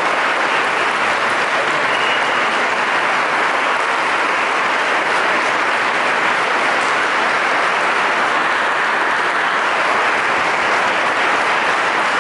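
Large audience applauding, a dense, steady clapping that does not let up.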